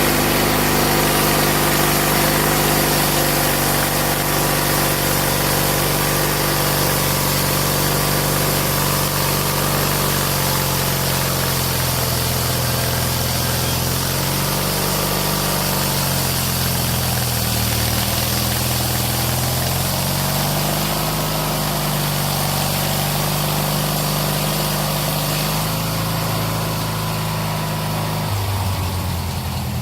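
Salvaged Snapper lawn mower engine running a homemade sawmill, with a steady engine hum. Its pitch sags and recovers a couple of times midway, then drops shortly before the end.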